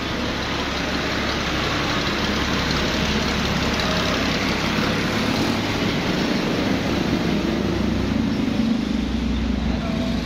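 Fiat 640 tractor's diesel engine idling steadily, getting a little louder over the first few seconds.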